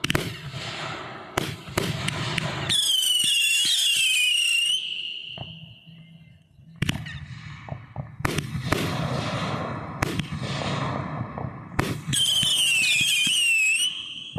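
Fireworks going off: a series of sharp bangs, each followed by crackling. Twice, a shrill whistling firework warbles and falls in pitch for about two seconds.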